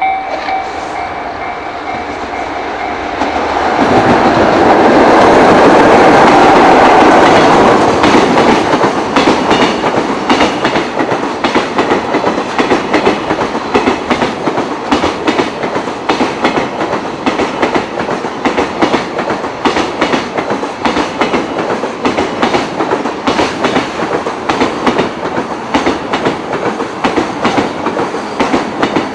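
A JR Freight EF66 electric locomotive passes close by at speed, a loud rush about four to eight seconds in. Its train of container wagons follows, clattering steadily over the rail joints. A level-crossing bell's tone dies away in the first few seconds.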